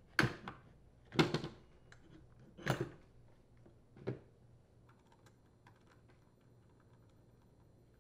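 Hedge trimmer's metal gear case and plastic engine housing knocking and scraping together as the gear case is fitted onto the engine block: four short clunks in the first four seconds, then only faint light ticks.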